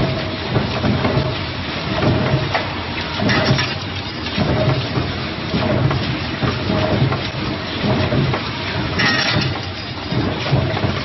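Multi-spindle tapping machine running, a steady dense mechanical clatter with a faint tone that repeats about every 0.7 s. Two brief bright clinks come about three and a half seconds and about nine seconds in.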